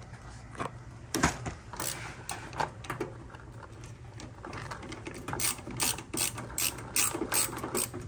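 Hand ratcheting screwdriver clicking as a small screw is driven in. The clicks are scattered at first, then settle into a steady run of about three a second.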